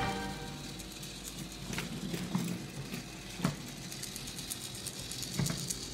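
Quiet handling of wooden toys: a few soft, short taps and knocks as a toy helicopter and wooden playset pieces are moved about, over faint room noise.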